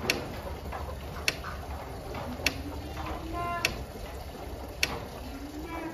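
Sharp, even ticks repeating about once every 1.2 seconds, with faint short rising calls between them.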